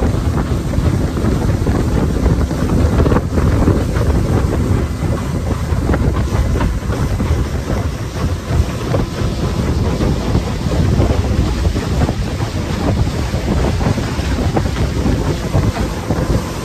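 Small fishing panga running fast over open sea: heavy wind buffeting on the microphone over the steady drone of the boat's motor and spray rushing along the hull.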